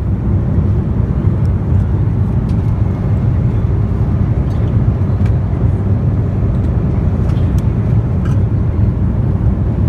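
Steady cabin noise of a Boeing 777-300 in flight, a constant low rumble of engines and rushing air, with a few faint ticks over it.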